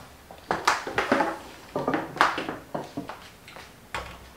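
Dishes and utensils knocking and clinking in a kitchen: a quick run of sharp clatters, some ringing briefly.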